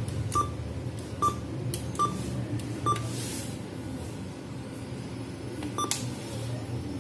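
ATM keypad beeping as keys are pressed: four short, identical beeps about a second apart while the PIN is typed in. A fifth beep with a click comes near the end as an on-screen menu button is pressed. A steady low hum runs underneath.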